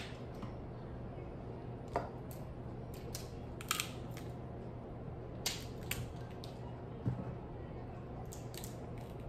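Crab-leg shells being cracked by hand and snipped with kitchen scissors: a dozen or so scattered sharp clicks and crunches over a steady low hum.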